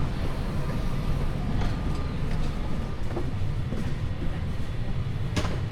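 Steady low rumble of a train, with a few faint ticks and one brief sharp knock near the end.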